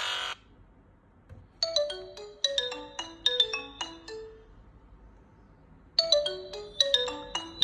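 Nokia 301 mobile phone ringtone: a short melody of quick, ringing notes that starts about a second and a half in and repeats about four seconds later. A louder, denser ringtone cuts off right at the start.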